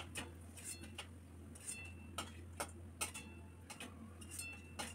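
Light metallic clinks and taps of a steel spoon against a steel bowl and wok, about a dozen at irregular intervals, several ringing briefly, as fried bottle-gourd kofta balls are lifted out of the oil.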